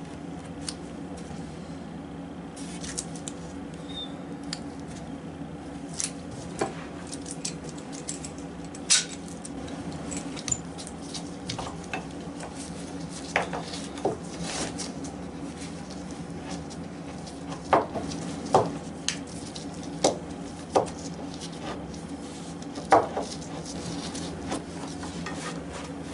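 Metal bar clamps clinking and clicking as they are handled and tightened across a glued-up board, a dozen or so scattered sharp knocks, some ringing briefly, over a steady low hum.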